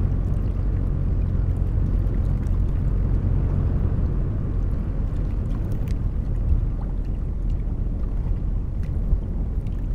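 Steady low rumble of a passing cargo ship, with the rush of its bow wave through the water.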